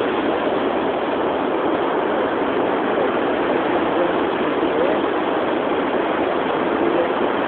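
Steady rush of ocean surf on a beach, an even noise with no break.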